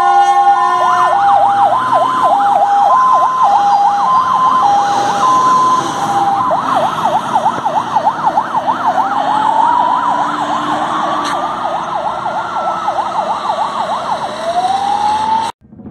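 Fire engine sirens on an emergency run: a two-tone hi-lo siren stepping between two notes about every half second over a fast yelping siren, then after about six seconds the fast yelp alone with a slow rising and falling wail. The sound cuts off abruptly near the end.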